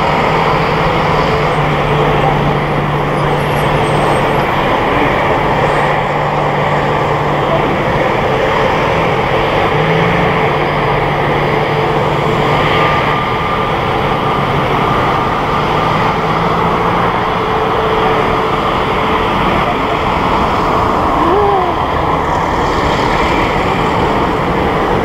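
Airbus A319-112 jet engines (CFM56) at takeoff power during the takeoff roll and climb-out: a steady roar with a low, even hum under it.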